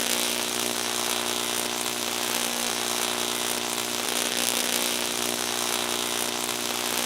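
Electric shock sound effect: a steady electrical buzz made of a low hum with dense crackling hiss over it, unbroken and even in level.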